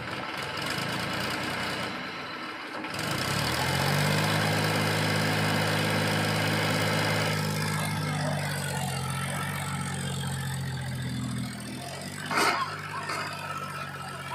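Diesel engine of a farm tractor or backhoe running steadily. Its low, even drone comes in louder about three seconds in, and a single sharp click is heard near the end.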